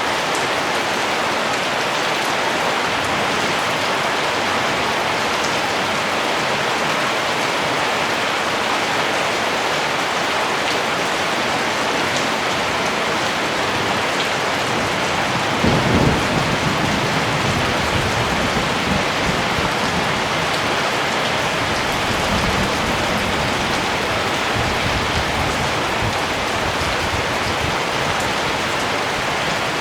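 Steady rain falling, with a low rumble of distant thunder starting about halfway through and dying away over several seconds.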